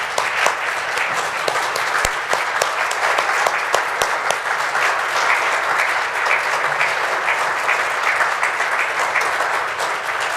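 A seated-turned-standing conference audience of a few dozen people giving a standing ovation: steady, dense applause of many hands clapping.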